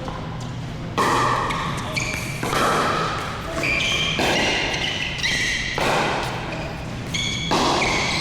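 Pickleball paddles striking a plastic pickleball in rallies: a series of sharp pops every second or so, each with a short ringing tail.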